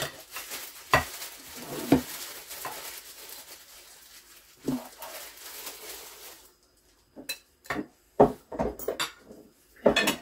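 Utensils clinking and scraping against a baking dish as lasagna is cut and served. A steady hiss cuts off about six and a half seconds in, and the second half holds several sharper knocks and clinks.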